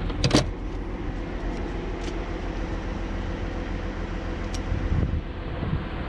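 Short metallic clatter as a steel tool drawer in a service truck's compartment is rummaged through, followed by a few light clicks, over a steady low rumble.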